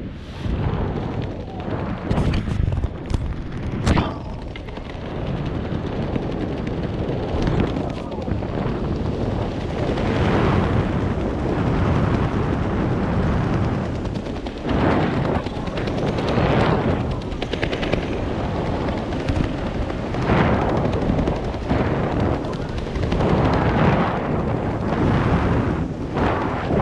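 Wind buffeting the camera microphone during a descent under an open parachute canopy, loud and gusting in surges every second or two, with a few sharp knocks in the first four seconds.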